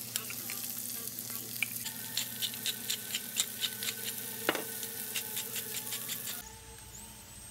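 Green beans sizzling in melted butter and garlic in a nonstick frying pan, with frequent crackling pops as they are stirred with a spatula, and a single knock about four and a half seconds in. The sizzle cuts off suddenly near the end.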